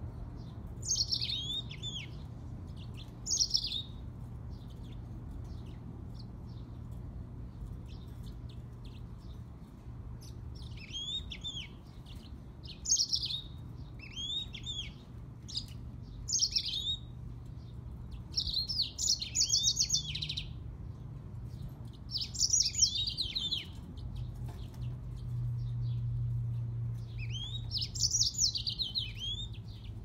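Grey singing finch × canary hybrid singing about nine short, high warbling phrases of a second or two each, with pauses of a few seconds between them. A steady low hum runs underneath.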